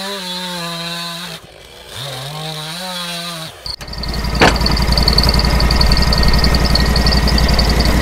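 Stihl chainsaw running at high revs, easing off for a moment about a second and a half in and then revving back up. About four seconds in it gives way to a louder, steady engine with a low pulsing beat: the portable band sawmill's engine running.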